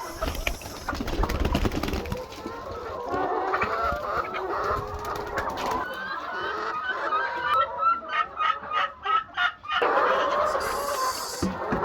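A large flock of laying hens clucking, many calls overlapping. Low rumbling and knocks run through the first two seconds, and a quick run of sharp repeated notes comes about eight seconds in.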